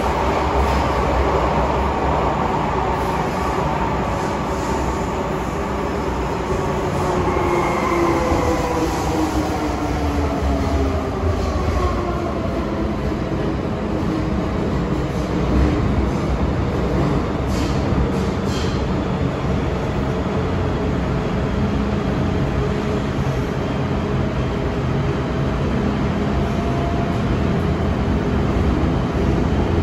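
MTR M-train electric multiple unit heard from inside the car, running at speed: a continuous rumble of wheels on the track under the whine of its traction motors and inverters. Several whining tones glide downward over the first ten seconds or so, then hold steadier. This is the loud motor howl this train is known for.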